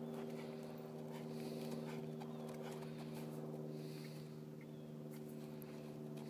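Hoofbeats of an American Quarter Horse gelding moving on soft arena dirt, faint under a steady low hum that holds throughout.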